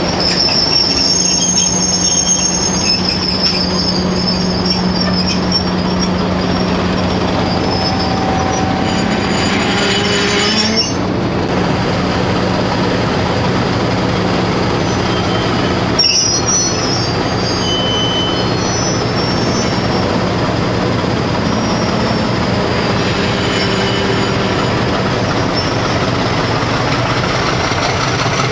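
A diesel-hauled passenger train rolling slowly past at close range, the locomotive's engine running steadily under the sound of the wheels on the track. Thin, high wheel squeal comes through in the first part, and the sound changes abruptly about eleven seconds in.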